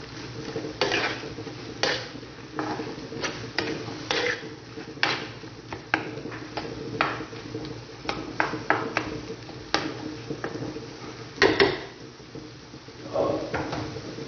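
A metal spoon scraping and knocking against a black frying pan as chopped offal bopis is stirred and cooked down until dry. The scrapes come irregularly, the loudest a little before the end, over a steady low hum.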